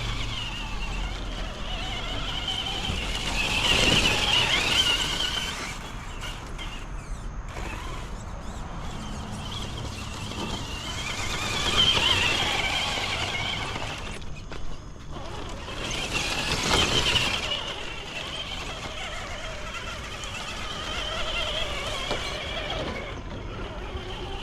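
Electric motor and gearbox of a Traxxas TRX-4 RC crawler whining as it drives, the pitch rising and falling with the throttle. It surges louder about four seconds in, again around twelve seconds and seventeen seconds in.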